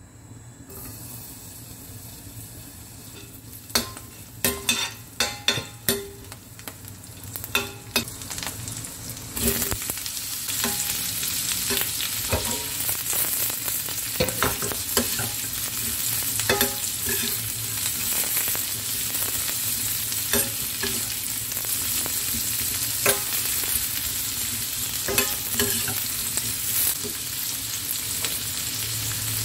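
Bell pepper pieces sizzling in hot oil in a stainless steel frying pan, stirred with a metal spoon that clinks against the pan. A run of sharp clinks comes first, and the steady sizzle sets in about ten seconds in.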